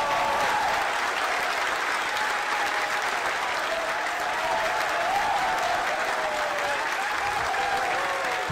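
Crowd breaking out in loud applause and cheering, with shouting voices over steady clapping.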